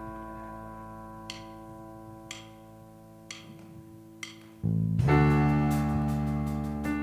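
A worship band's held keyboard chord fades under four soft ticks a second apart, like a count-in. About four and a half seconds in, the band comes in loudly with sustained keyboard chords and deep bass, opening the next song.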